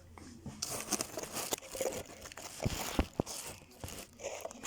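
Close handling noise: rustling and crinkling with irregular clicks and light knocks as things are moved about at close range, a few sharper knocks in the middle.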